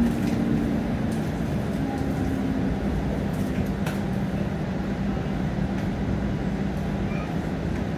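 TTC streetcar running along its rails, heard from inside the car: a steady rumble of wheels and motors with a low hum, and a few faint clicks.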